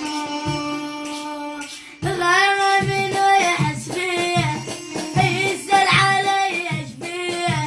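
Song with a plucked-string instrumental line over a steady drum beat; about two seconds in, a child's high voice comes in singing long, ornamented notes with a wavering vibrato over the beat.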